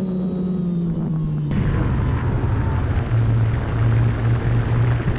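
Electric motor and propeller of an OMP Bighorn RC plane droning in flight, with wind rush over the airframe. The drone's pitch sinks a little, then about a second and a half in the sound changes abruptly to a lower, steady drone with louder wind noise.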